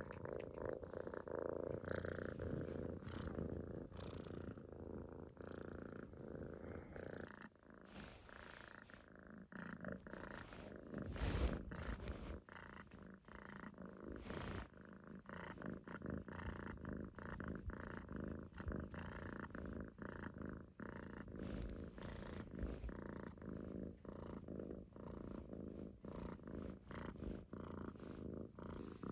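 Munchkin kitten snoring as it sleeps, a soft, steady, rhythmic rumble with each breath. A brief louder thump comes about eleven seconds in.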